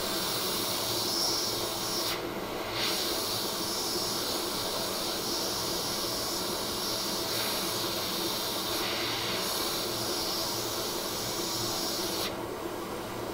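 Hot air rework station blowing a steady hiss onto a phone logic board to reflow solder under a small replacement diode. The airflow dips briefly twice and cuts off near the end.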